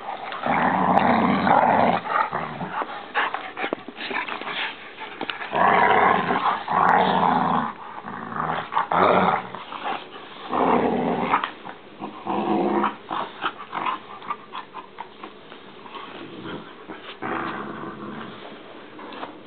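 Two large mixed-breed dogs, a pit bull–mastiff and a shepherd–Labrador, play-fighting, growling in repeated bouts of a second or two with short knocks and scuffles in between.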